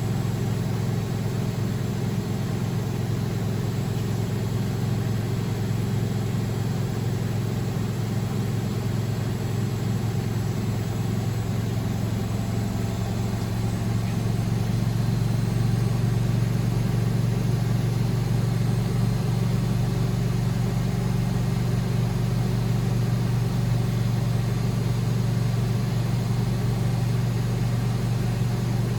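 Beko WML 71433 NP washing machine running with a steady motor hum, a little louder from about halfway through.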